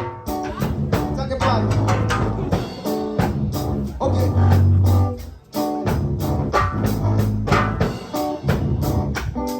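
Background music with a steady beat, drums and guitar, with some singing.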